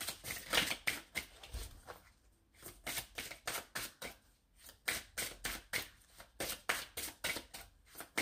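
A deck of cartomancy cards being shuffled by hand: quick runs of papery card flicks and taps, with short pauses about two and four seconds in.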